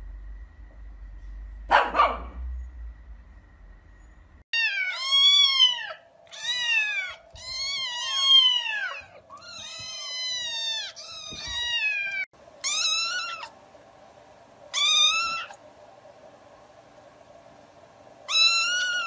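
A pug barks once, about two seconds in. Then young kittens mew over and over: high, thin calls that rise and fall in pitch, in quick runs at first and then spaced a second or two apart.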